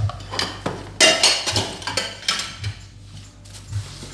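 Dishes and cutlery clinking and clattering in a kitchen sink as they are washed by hand, a run of knocks and scrapes that is loudest about a second in.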